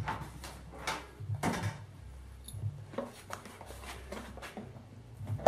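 A series of sharp plastic clicks and knocks as the latches of a Black & Decker wet-and-dry shop vacuum are unclipped and its motor head is lifted off the tank.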